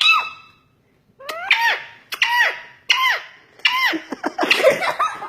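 Pet parrot calling: a run of four high, squeaky calls that each rise and fall in pitch, then a jumble of noisier chatter near the end.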